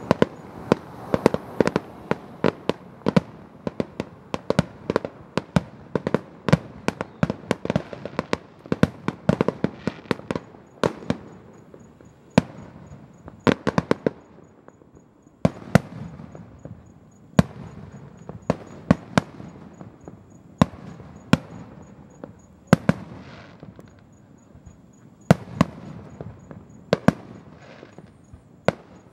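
Aerial fireworks shells bursting: sharp bangs come several a second for the first ten seconds or so, then fewer and more spaced out, with a rumble between them.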